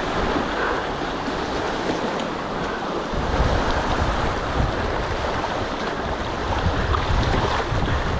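River water rushing around a kayak drifting downstream, with wind buffeting the microphone more heavily from about three seconds in.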